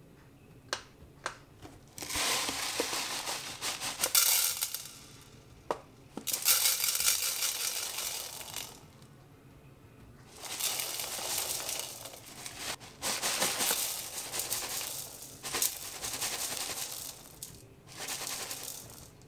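Coarse dishwasher salt granules poured from a plastic bottle into a glass bowl, a rattling hiss that comes in several spurts with short pauses between. A few light clicks come just before the first pour.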